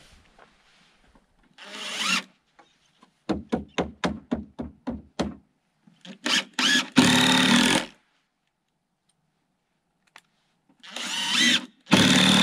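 Cordless impact driver driving 2.5-inch number 8 screws into treated lumber in bursts: a short whir, a quick run of about ten stuttering pulses, then two longer, loud runs near the middle and at the end as screws are driven home.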